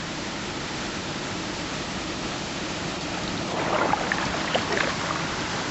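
Kayak paddle dipping into canal water, with splashing and dripping that starts about three and a half seconds in, over a steady hiss.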